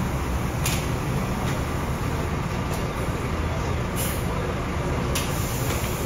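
Coach bus engine idling at the kerb, a steady low rumble, with several sharp clicks and knocks from hard-shell suitcases being handled and set down.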